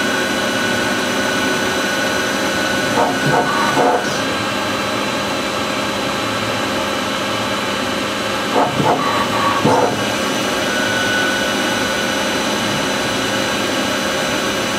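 Star SA-12 CNC Swiss-type lathe running with its main spindle at 3000 rpm: a steady machine hum and whine made of several constant tones over a noisy hiss.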